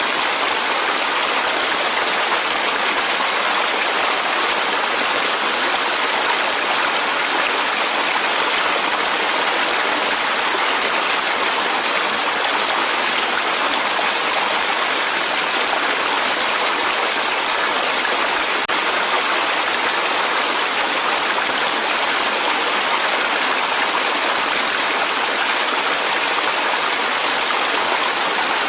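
Clear mountain valley stream flowing steadily over rocks, an even rushing of water.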